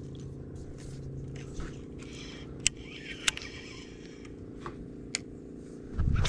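Fishing rod and reel being handled: a few sharp clicks of the reel over a steady low hum, with a brief low thump just before the end.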